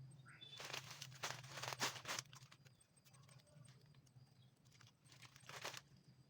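Rustling and scraping from cut galangal stalks being handled and bound with string. There is a longer burst of about a second and a half near the start and a shorter one near the end.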